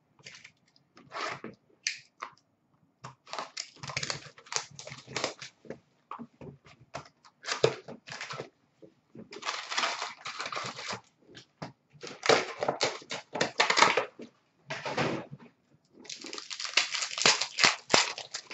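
Foil wrappers of Upper Deck Artifacts hockey card packs being torn open and crinkled by hand, with cards rustling as they are pulled out. It goes in irregular bursts of rustling, longer and denser ones near the middle and toward the end.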